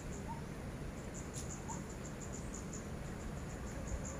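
Insects, likely crickets, chirping in quick high-pitched pulses that come in irregular clusters, over a faint steady low background. Twice a short, faint rising chirp sounds lower down.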